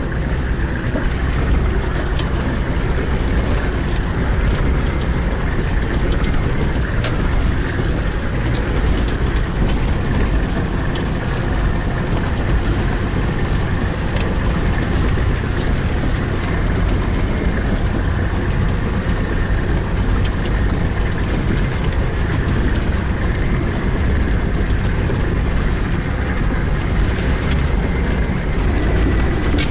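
4WD vehicle's engine running steadily under low-speed load, heard from inside the cabin, with occasional knocks and rattles as it crawls through a rocky creek crossing and onto a gravel track.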